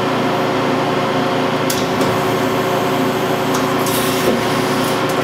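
Fortune V-Turn 36 CNC lathe running: a steady machine hum of several tones, with a few short hissing sounds from about two seconds in as its tool turret moves.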